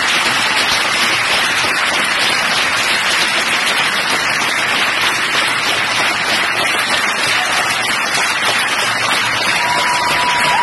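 A large audience applauding steadily, a dense, continuous clatter of many hands clapping at once.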